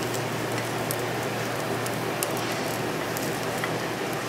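Potato latkes frying in oil in a nonstick skillet: a steady sizzle with many small crackling pops, over a steady low hum.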